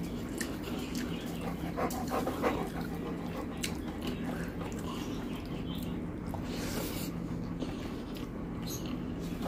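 Fingers mixing rice and curry on a steel plate: wet squishing, with a cluster of clicks against the metal about two seconds in, over a steady low hum.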